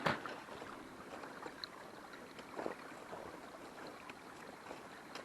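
Small creek bubbling and trickling steadily under snow. A step crunches in the snow right at the start, and a fainter one comes about two and a half seconds in.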